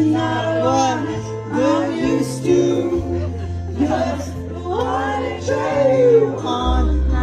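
A song being performed: a voice sings a melody over instrumental accompaniment with long, held bass notes.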